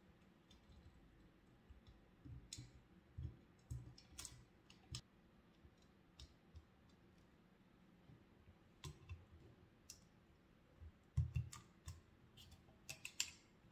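Faint, scattered clicks, taps and low thumps of a plastic pop filter and elastic hair bands being handled and pressed onto a Blue Yeti microphone's metal body. A cluster of louder knocks comes near the end.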